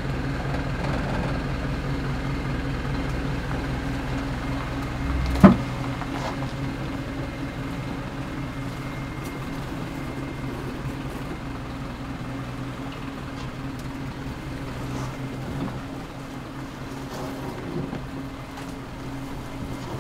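Isuzu NPS 4x4 truck's diesel engine running steadily under load as it crawls up a steep rocky track, slowly growing fainter. A single sharp knock about five and a half seconds in is the loudest sound.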